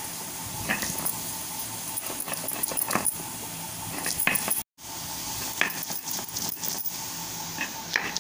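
Stone pestle crushing and rubbing garlic cloves and ginger on a flat grinding stone (shil-nora): irregular knocks and gritty scraping of stone on stone. The sound cuts out completely for a moment about halfway through.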